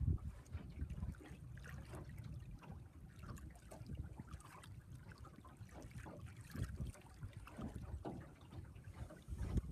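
Small waves lapping and splashing against a boat's hull in irregular slaps, over a low rumble of wind on the microphone.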